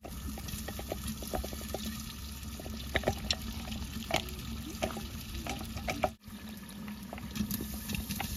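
Boiled chicken pieces and their cooking liquid pouring from a steel bowl into a clay pot: a steady watery pour with many small clicks and splats as pieces drop in.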